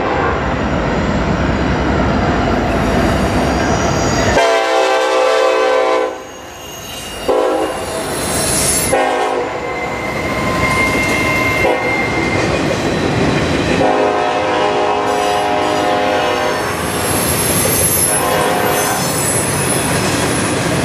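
A Norfolk Southern mixed-freight train rumbling past at close range, its locomotive horn sounding in several separate blasts. A thin squeal of steel wheels on rail comes in about halfway through.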